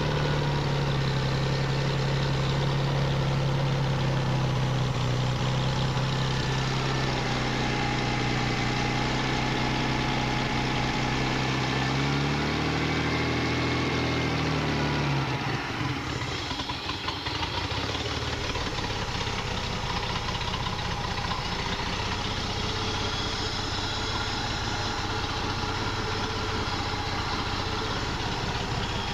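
1957 Mercedes-Benz 300SL's direct-injected, dry-sump straight-six running without load on an engine test stand during its first bench test after rebuild. It idles steadily, with one brief rise and fall in engine speed about twelve seconds in.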